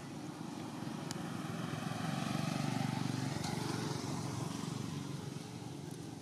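Engine of a passing motor vehicle running steadily, growing louder about two seconds in and fading toward the end.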